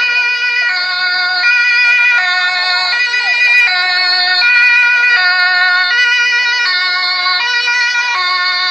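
German police van's two-tone siren (Martinshorn), loud and close, alternating evenly between a higher and a lower tone about every three-quarters of a second.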